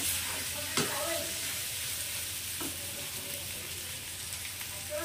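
Boiled potato pieces in spiced masala sizzling in oil in a kadhai while being stirred and roasted with a perforated metal spatula. The frying hiss is steady, and the spatula knocks against the pan once about a second in and again just past halfway.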